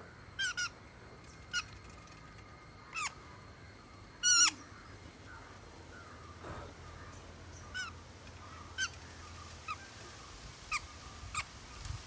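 Green-cheeked conure chicks giving short squawking calls, about a dozen spaced irregularly, the loudest a quick cluster a little after four seconds. A faint steady high whine runs under them.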